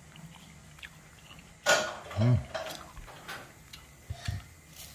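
Mouth sounds of eating glutinous corn on the cob: soft scattered clicks of chewing, a sudden loud noise a little under two seconds in, and a brief vocal sound just after it.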